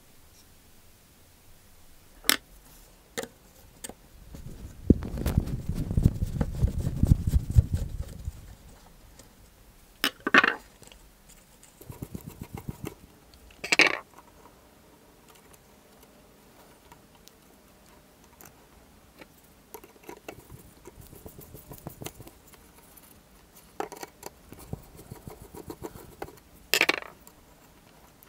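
Close-up handling sounds from taking apart an old drill's metal handle: scattered clicks, taps and short scrapes of metal and plastic parts and wires. A few seconds in there is a longer low rubbing noise lasting about three seconds.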